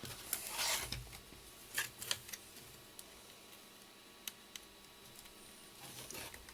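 Scattered small clicks and brief scrapes from handling small parts and tools: a longer scrape near the start, a few clicks around two seconds in, two sharp ticks past four seconds, and another scrape near the end.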